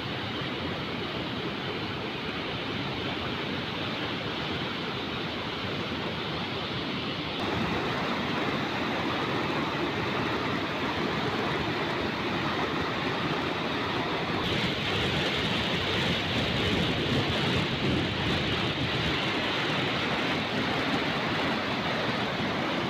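Muddy floodwater rushing over a concrete dam weir and churning below it: a steady rush of water noise. It steps up louder about seven seconds in and grows brighter and hissier about halfway through.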